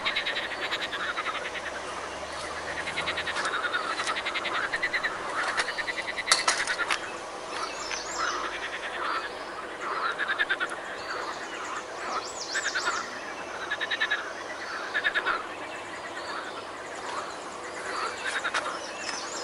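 Pond frogs calling over and over in a chorus of short croaks, with birds singing now and then. One knock about six seconds in.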